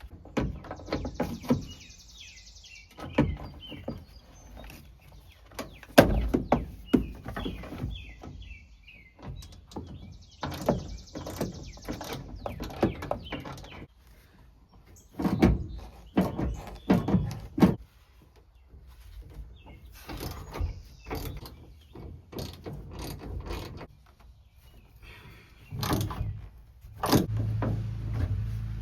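Hand tools with a Torx bit working the seatbelt anchor bolts loose in a van: irregular metal clicks, knocks and clunks, with a few short stretches of rapid clicking.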